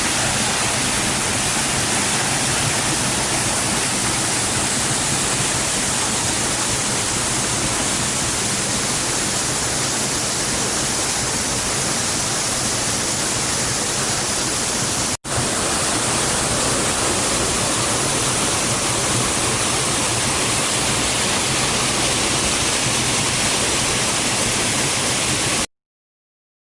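Waterfall: a loud, steady rush of falling water, broken by a split-second gap about halfway through and cut off abruptly near the end.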